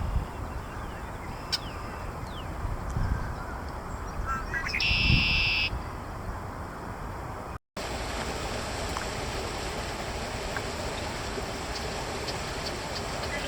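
A red-winged blackbird singing its song once, a couple of short opening notes followed by a loud buzzy trill, about five seconds in, over a steady low rumble.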